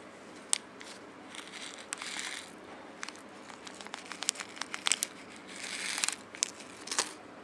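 Thin clear plastic clamshell food container being handled and opened, giving crinkling and many sharp clicks and snaps of the plastic, with longer stretches of crackling about two seconds in and again about six seconds in.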